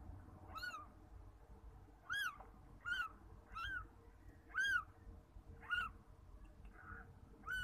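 Newborn kittens mewing: about seven short, high-pitched cries, each rising and then falling in pitch, roughly one a second.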